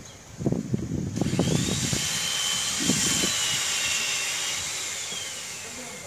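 Leafy tree branches rustling and cracking as they are handled, then a loud high hiss with a whine that slowly falls and fades.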